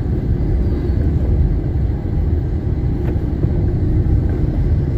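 Steady low rumble of a taxi's engine and tyres on the road, heard from inside the moving car's cabin.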